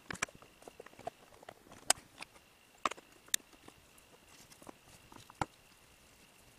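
Irregular light clicks and taps of small plastic connector parts and tools being handled on a workbench as a solar-cable connector is put together. A faint steady high-pitched tone runs underneath.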